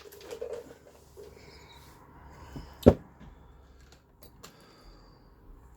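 Quiet handling noises of tools and wire as a chopped cable is worked on by hand, with one sharp click about three seconds in.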